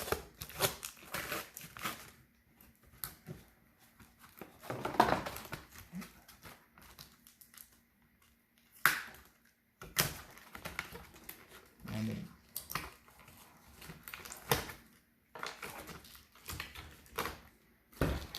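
Close handling noise: scattered clicks, taps and crinkling as packing tape is cut and pulled off batteries in a plastic battery compartment, with a longer rustling scrape about five seconds in.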